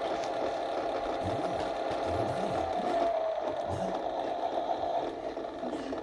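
Toy washing machine's small electric drum motor running through its automatic drum-clean cycle, a steady whine that drifts slightly up and down in pitch.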